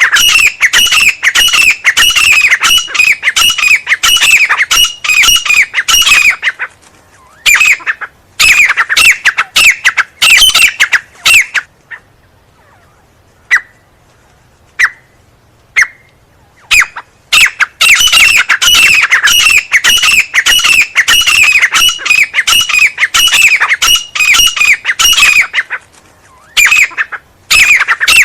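Teetar (francolin) calling in fast, loud runs of harsh, repeated notes, many of them falling in pitch. Partway through the calling breaks off, leaving only a few short single notes, then starts again at full pace.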